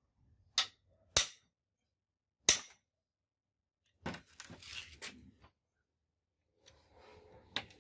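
Hammer striking a steel socket-wrench bar to break loose a bolt on an old truck air compressor's drive gear: three sharp metallic strikes in the first few seconds, a rattling clatter of metal about four seconds in, and another strike near the end.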